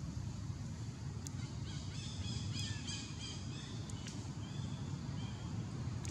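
A quick run of short, high chirping calls about two seconds in, lasting a second or two, then two brief single chirps, over a steady low rumble.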